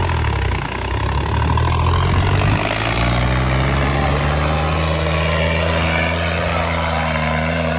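Swaraj 855 tractor's diesel engine running hard, its speed picking up about two and a half seconds in and then holding steady.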